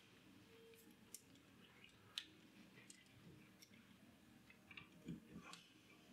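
Near silence with a few faint, sharp clicks of a small resistor's wire leads being handled and bent round a screwdriver shaft; the clearest click comes about two seconds in.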